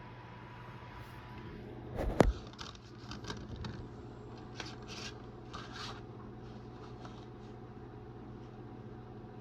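A plastic DVD case being handled: one sharp snap or knock about two seconds in, then a few seconds of scraping and rubbing, over a steady low hum.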